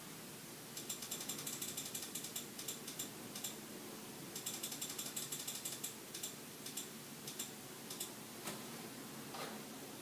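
Clicking at a computer: two runs of fast, even, ratchet-like clicks, then a few separate single clicks, over a faint room hum.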